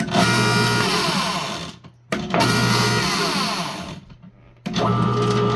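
Motor from a broken 18-sheet paper shredder driving a dual-shaft plastic shredder, switched on three times: the first two runs stop after about two seconds each, winding down with a falling whine, and the third, about four and a half seconds in, keeps running. Cycling the power like this is how the owner gets the motor, which can start in either direction, to turn the right way.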